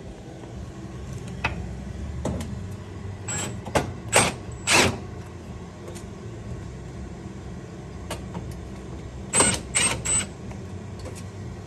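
Screws being driven into the KitchenAid gas stovetop's panel during reassembly: two clusters of short, sharp bursts, about four and then about three, over a steady low hum.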